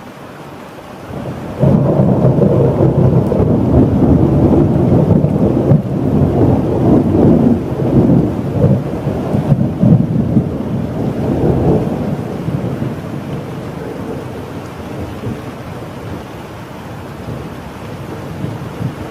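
A thunderclap breaks in about a second and a half in over steady rain, then rumbles on loudly for about ten seconds and slowly fades back to the rain.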